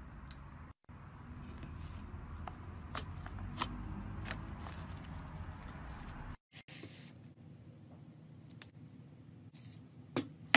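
Thick white slime squeezed and stretched by hand, giving irregular small sticky clicks and pops. After a cut there are two short hisses, and near the end a few louder clicks as slime is worked in a perforated metal press.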